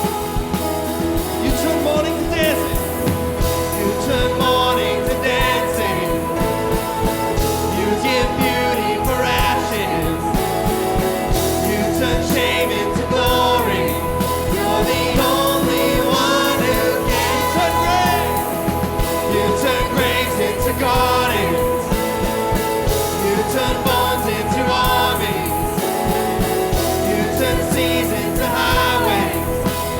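A live worship band playing a song, with voices singing over the instruments.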